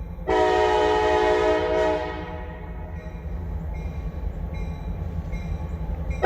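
Diesel locomotive air horn sounding one blast of about a second and a half, several tones together, over the train's steady low rumble. A second blast begins at the very end.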